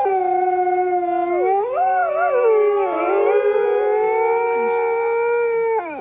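Several coyotes howling together: long overlapping howls at different pitches that waver and glide up and down, then slide down and break off together near the end.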